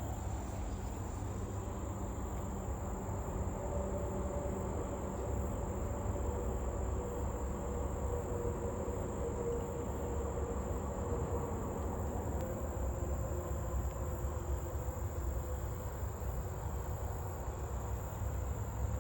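Crickets trilling in one steady, unbroken high-pitched drone, over a low rumble.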